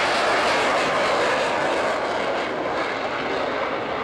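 Blue Angels aircraft engine noise, a steady rushing roar that eases slightly and loses some of its high end after about two seconds.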